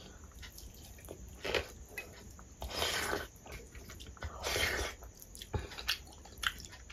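Close-miked, wet eating sounds in about five short bursts: rice mixed with dal squished by hand and eaten, with chewing.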